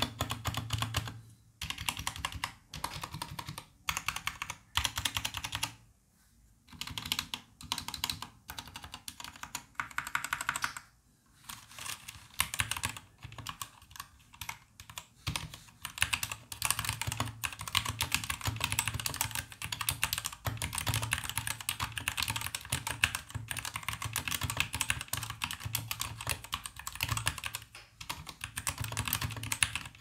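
RK G68 mechanical keyboard with red linear switches being typed on. For about the first eleven seconds there are short runs of key and spacebar presses with brief pauses between them, then fast continuous typing.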